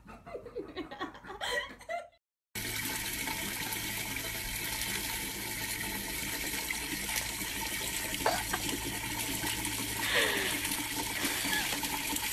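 Water pouring from an outdoor wall tap in a steady stream, starting about two and a half seconds in.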